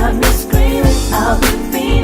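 Hip-hop/R&B song with a steady drum beat, heavy bass and sung vocal lines.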